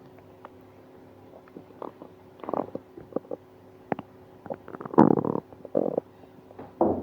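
Human stomach gurgling in irregular bursts with small pops and clicks between them; the longest, loudest gurgle comes about five seconds in. The stomach is upset and painful after eating ice cream.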